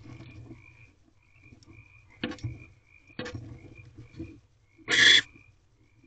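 Barn owl shifting about in the wood shavings of her nest box as she settles onto her eggs: a few scratchy scrapes and rustles, with one short, loud, harsh burst about five seconds in. Short chirping calls repeat steadily in the background.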